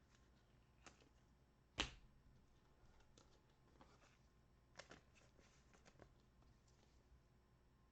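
Trading cards being handled on a table: faint rustles and light clicks, with one sharp click about two seconds in and a few smaller ones near five seconds.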